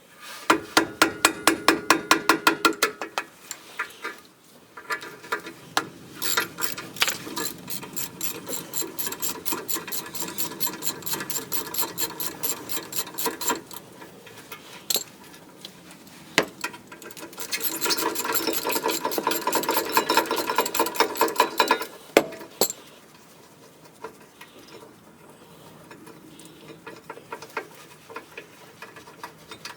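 Ratchet wrench clicking rapidly and evenly in three long runs, with quieter scattered clicks between them.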